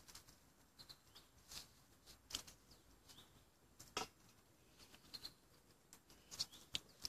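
Faint, scattered crackles and clicks from sticks burning and being handled at a small wood-burning hobo stove.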